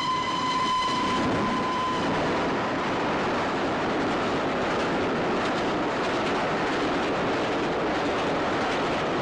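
Steam express train passing through the station at speed without stopping. Its whistle sounds as one long steady note that cuts off about two seconds in, under a continuous loud rush and rattle of the passing train.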